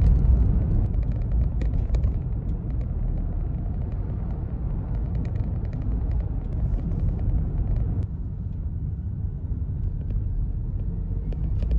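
Steady low rumble of a car driving, heard from inside the cabin: road and engine noise, with a few faint clicks.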